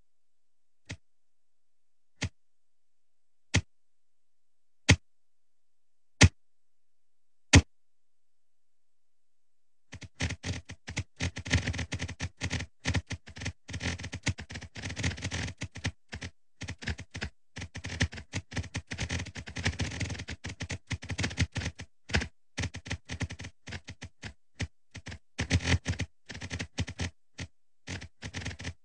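Synthetic click sound effects of an earthquake-map animation, one click per earthquake as its circle appears, louder for bigger quakes. It opens with six single clicks about a second and a half apart, each louder than the last. About ten seconds in, a dense, irregular rattle of many clicks of varying loudness begins, like rapid typing.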